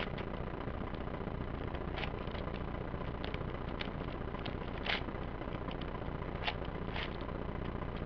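Layers of a 5x5 puzzle cube being turned by hand: a few scattered plastic clicks and clacks, the loudest about five seconds in, over a steady low background noise.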